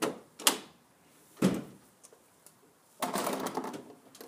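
2003 Nissan Frontier tailgate being opened with its new handle: two sharp latch clacks, then a heavier clunk about a second and a half in as the tailgate drops, then about a second of rattling near the end as it is moved.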